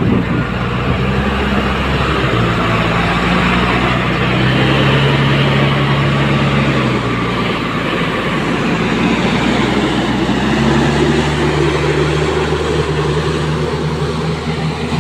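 Heavy diesel engine of a JCB machine running loud and steady, its pitch shifting a little, easing in the middle and picking up again about ten and a half seconds in.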